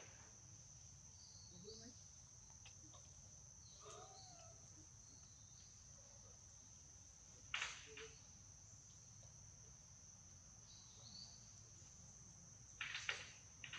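Steady high-pitched drone of insects in the trees, with a few sharp clicks about halfway through and again near the end.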